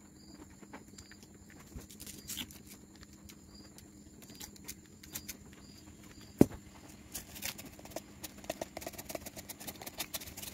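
Light, scattered clicks and taps of clear plastic cupcake cups being handled and sprinkles being shaken from a plastic bottle, with one sharper click about six seconds in.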